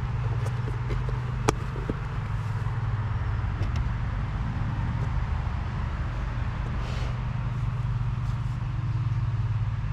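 Steady low hum, like a machine or traffic running in the background. A single sharp click comes about a second and a half in, with a few faint taps later.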